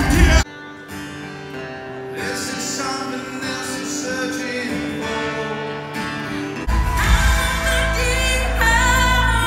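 Live pop song with a singer and band, played over the arena's sound system and picked up from the stands by a phone microphone. About half a second in it drops abruptly to a quieter passage of held notes. About seven seconds in, the full band with heavy bass and singing comes back.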